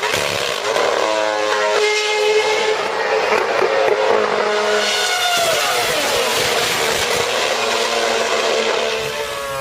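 High-revving race car engines passing at speed: the engine note drops as a car goes by, about five seconds in, and climbs again as it accelerates.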